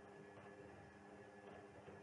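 Faint steady electrical hum from an Indesit WISL 62 front-loading washing machine during a synthetics wash cycle, with no clear drum or water sounds.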